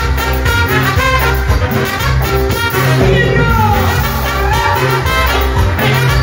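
Live Mexican banda music: a trumpet section plays a fast melody over a steady bass line and drums.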